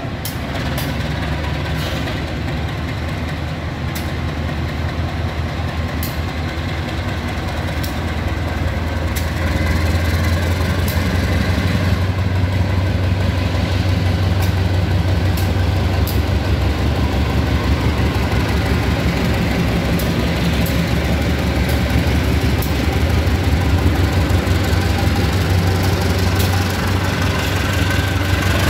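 KAI CC 203 diesel-electric locomotive's engine running as it pulls the train out of the station, a steady deep drone that grows louder about a third of the way in and then holds. Occasional sharp clicks sound over it.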